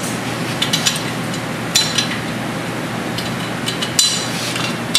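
Steel tools and the clamping fixture clinking and clicking as a cylinder head is handled and adjusted, about half a dozen sharp metal-on-metal knocks with a short ringing, over a steady shop hum.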